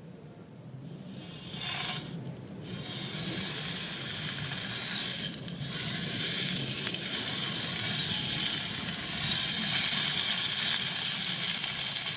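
Slices of seasoned beef sizzling in a hot pan. The sizzle starts about a second in, breaks off briefly twice, then runs on steadily and grows a little louder.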